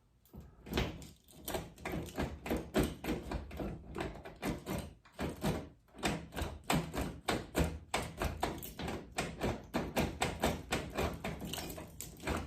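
Rapid, repeated clicking and clacking of a 1995 Nissan D21's sticking manual door lock being worked back and forth, about three to four clicks a second, just after fresh lubricant has gone in.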